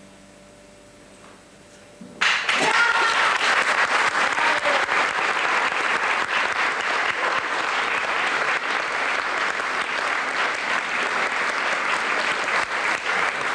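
Audience applause breaks out suddenly about two seconds in, after a faint steady hum, and carries on as dense, steady clapping.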